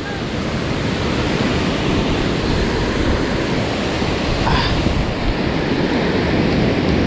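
Ocean surf washing onto the shore in a steady rush, with wind buffeting the microphone.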